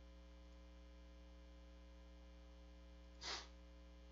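Near silence with a steady low electrical mains hum on the recording. About three seconds in there is one short, soft burst of noise.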